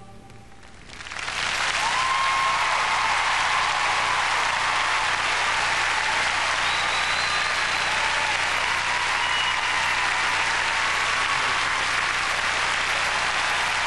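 Large arena crowd applauding. The applause swells up about a second in and then holds steady.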